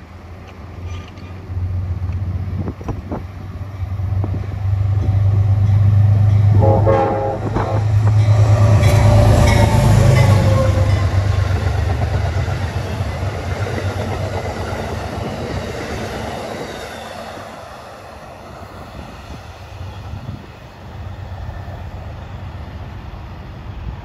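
Amtrak P32AC-DM diesel locomotive passing close with its engine rumbling, sounding its horn about seven seconds in, the horn's pitch dropping as it goes by. The passenger cars follow, clattering along the rails and fading away.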